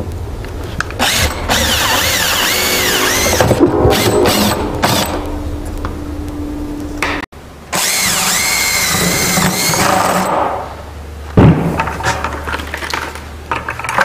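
Cordless drill with a 15/16-inch spade bit boring holes through a plastic bucket lid, the motor whine wavering up and down as the bit bites and breaks through. The drilling stops for a moment about seven seconds in, resumes, and ends about ten seconds in; a single knock follows about a second later.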